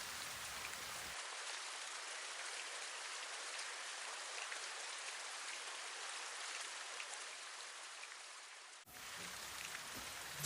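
Steady rain falling, as an even hiss of drops. About a second in the deep rumble and the highest hiss drop away, leaving a thinner patter, and the fuller rain sound returns near the end after a brief dip.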